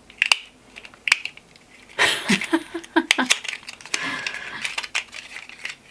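Small lipstick box being handled and opened: a few sharp clicks, then two stretches of crinkling and rustling packaging.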